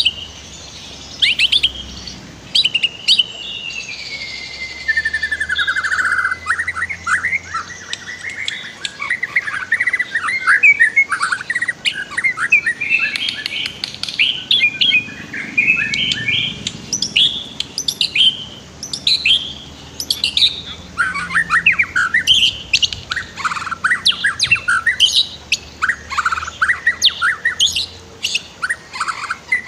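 White-rumped shama singing a long, rich run of varied phrases: quick whistles, trills and chatters with a long falling whistle a few seconds in, the kind of song used as a master recording to teach captive shamas.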